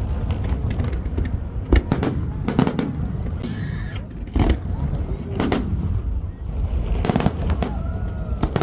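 Aerial fireworks bursting: about a dozen sharp bangs at irregular intervals over a constant low rumble.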